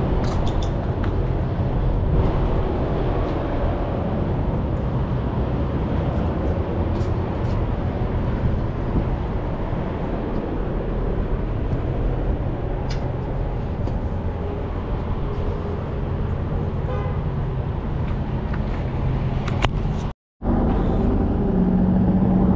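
Steady outdoor background noise with a strong low rumble. It drops out for a moment near the end, and a different steady noise follows.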